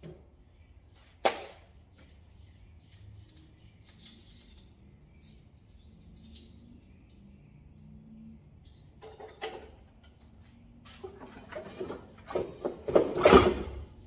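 Knocks and metallic clatter of bicycle headset parts and tools being handled: a single sharp click about a second in, then a run of clinks and knocks near the end, the loudest of them close to the end.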